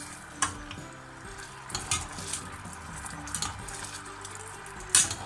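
Port and pomegranate sauce sizzling and bubbling in a stainless steel frying pan as a metal spoon bastes a beef fillet. The spoon clinks against the pan four times, loudest just before the end.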